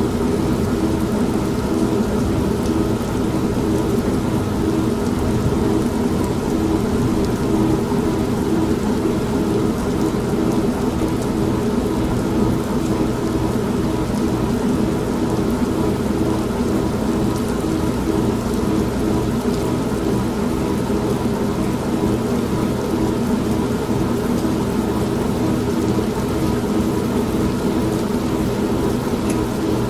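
Steady rain mixed with rolling thunder and the steady hum of an old washing machine running.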